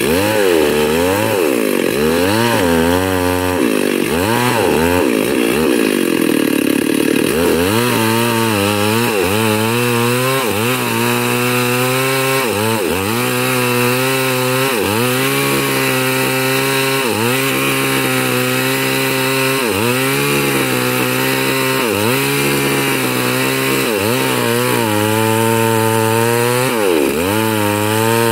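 Large two-stroke chainsaw cutting lengthwise through a huge log, the engine at full throttle and bogging under load, its pitch dipping and recovering about once a second.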